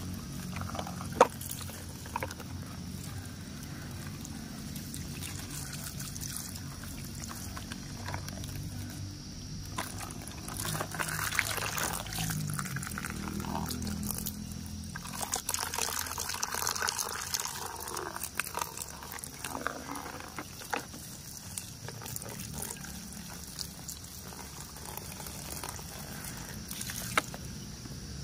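Water from a garden hose pouring and splashing over a plastic toy dump truck as it is rinsed, with a few sharp clicks, the loudest about a second in and near the end.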